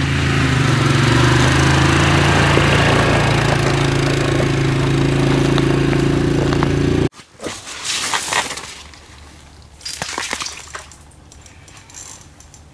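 ATV engine running steadily as it tows a trailer across the ice. It cuts off abruptly about seven seconds in, and a few scattered clicks and rustles follow.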